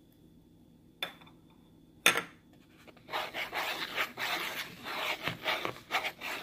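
Wire whisk stirring dry flour in a bowl. A click and a sharp knock come first, then about three seconds of rapid scratchy whisking strokes.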